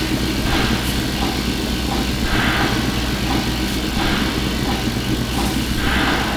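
Designed sci-fi space station repair bay ambience heard up close: a steady low machine hum under swells of hissing noise that rise and fall about every two seconds.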